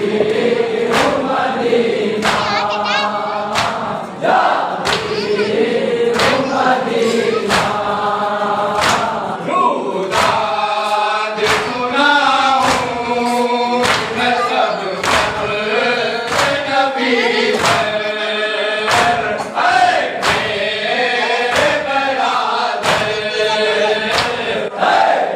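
A crowd of men singing a noha (Shia lament) together, with a steady beat of hands striking chests in matam, about three strokes every two seconds.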